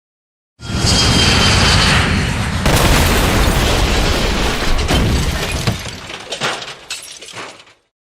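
Added plane-crash explosion sound effect: a sudden loud blast about half a second in, with a high whine over its first second or so. A second blast comes near three seconds. The rumble then fades into scattered crackles and cuts off abruptly near the end.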